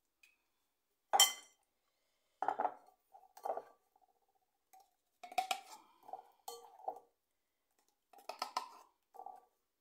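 Kitchen utensils and dishes clinking and knocking against each other in a series of separate clinks, some with a short ring. The loudest comes about a second in.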